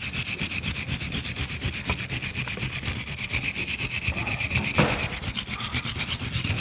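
Steel wire brush scrubbing rust off a metal part with rapid back-and-forth strokes, about eight a second.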